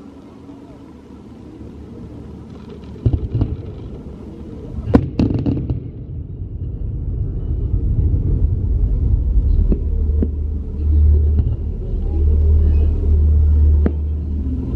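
A tram rumbling past close by, its low drone growing louder through the second half. Scattered sharp firework bangs ring out over it, the loudest about five seconds in.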